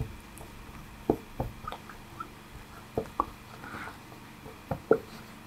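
A felt-tip marker writing on a whiteboard: short, irregular squeaks and taps as the letters of a word are drawn.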